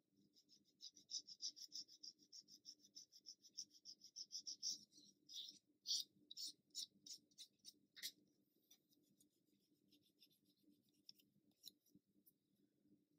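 Faint, rapid scratching strokes on a small plastic model part, about five a second, thinning to a few separate scrapes and stopping after about eight seconds: clean-up of seams and sprue-gate marks on the plastic before priming.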